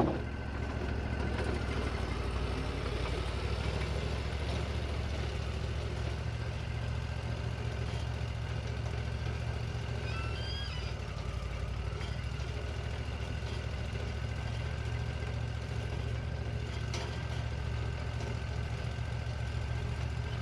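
Wood-Mizer LT40 portable band sawmill running steadily, its engine hum level throughout with a steady higher whine over it, after a short sharp knock right at the start.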